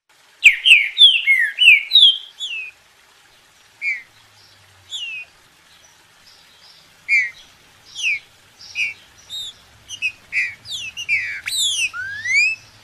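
Green-winged saltator (trinca-ferro) singing: loud, clear whistled notes, mostly falling in pitch, in a quick run of phrases about half a second in, then more spaced notes, and a second dense run near the end closing on a rising note.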